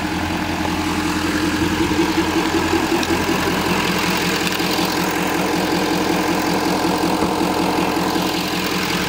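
A 2012 GMC Sierra 3500HD's 6.6-litre Duramax turbodiesel V8 idling steadily with an even, regular pulse. It is running smoothly.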